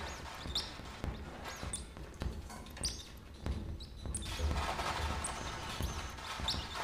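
Improvised experimental music: sparse, irregular knocks and thuds on a drum kit played with mallets, among short high chirps that bend in pitch. A denser hiss builds from about four seconds in.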